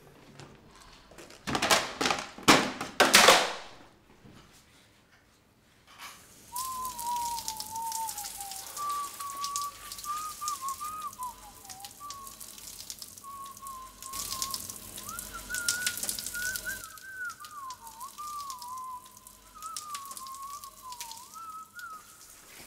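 A man whistling a wandering tune over the steady hiss of a running shower. A few loud noisy bursts come before it, in the first few seconds.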